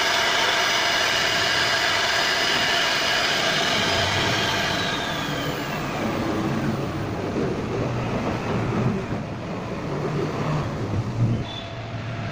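CNC router spindle running and its bit cutting into solid wood: a steady whine made of several high tones over the cutting noise. About five seconds in, one tone glides down in pitch and the whine gives way to a rougher, lower machine noise.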